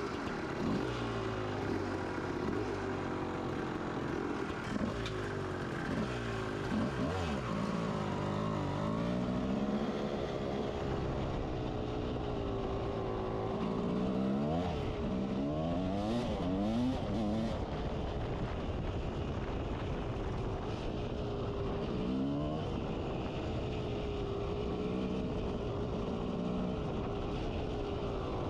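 1992 Kawasaki KX250's single-cylinder two-stroke engine being ridden, revving up and down again and again as the throttle is opened and closed.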